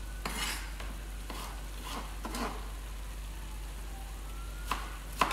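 Chef's knife chopping red pepper on a plastic chopping board in a few irregular strokes, the last a sharp knock near the end. Under it runs a steady sizzle of chicken, onion and tikka paste frying in a pan on high heat.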